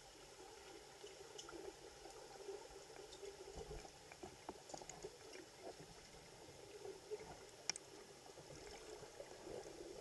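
Faint, muffled underwater sound in a swimming pool: low water movement with scattered small clicks, one sharper click about three-quarters of the way through.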